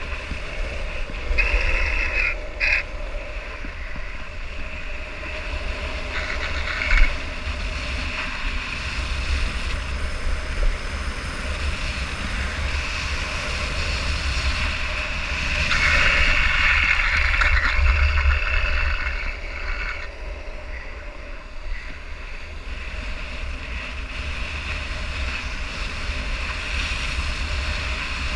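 Wind buffeting an action camera's microphone on a fast downhill skate run, over the steady rush of skate wheels rolling on asphalt. A few brief higher-pitched stretches come through, the longest lasting about four seconds a little past halfway.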